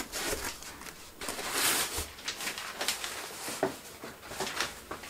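Handling noise of foam packing and kit parts in a cardboard box: scattered rustles, a longer swish about a second and a half in, and light knocks.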